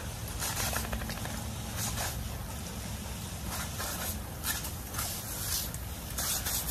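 Water from a garden hose spraying and splashing onto wet paving stones in short irregular bursts, with dogs' paws pattering on the wet ground.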